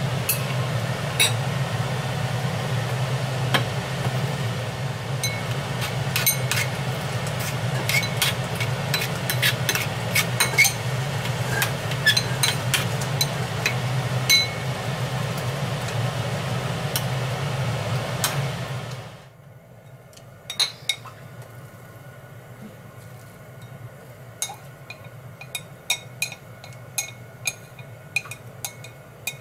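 A spoon clinking and scraping against a ceramic bowl while stirring cod roe into a dressing, many small irregular clicks. For about the first two-thirds a steady low hum runs underneath, then cuts off suddenly, and the clinking carries on more quietly.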